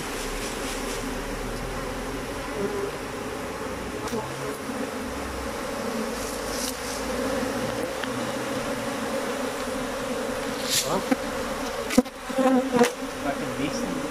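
Steady drone of a large mass of honey bees from a swarm just shaken down into an open wooden hive box, thousands of bees crawling over the top bars. A few sharp knocks come near the end.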